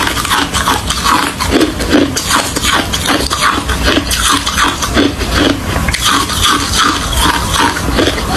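Ice being chewed: continuous crunching and cracking, with loud crunches coming two or three times a second.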